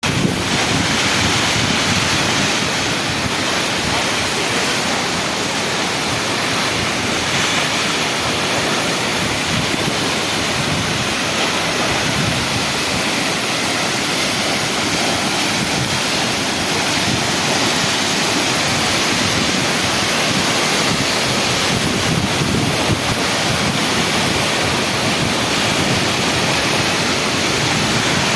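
A large waterfall, a steady loud rush of falling water.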